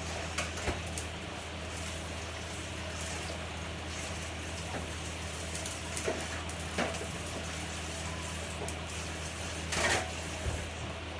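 Steady low hum with scattered light clicks and knocks of dishes and utensils being handled at a kitchen sink, and a brief louder rush of noise near the end.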